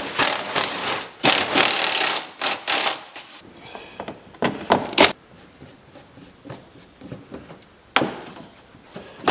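Tools and metal parts clattering during work under a car's hood: about three seconds of rapid rattling, then scattered clanks and knocks, the sharpest about five seconds in and again near eight seconds.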